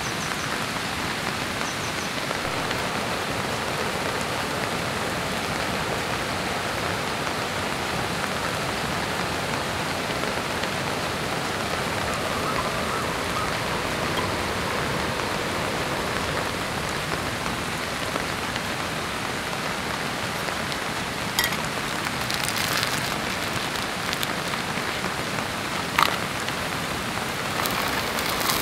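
Steady heavy rain falling. Near the end, a few sharp metallic clicks as camp cookware is handled.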